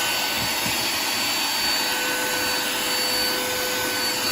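YANTU V01S 100-watt handheld car vacuum cleaner running steadily, a constant motor whine over the rush of suction.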